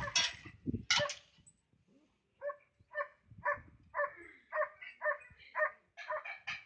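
Flat-coated retriever barking, then a steady run of short, quieter yips about two a second.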